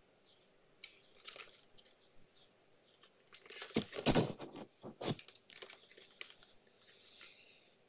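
Cardboard product box being handled and turned over in the hands: fingers rubbing and sliding on the card, with a louder run of scrapes and knocks in the middle.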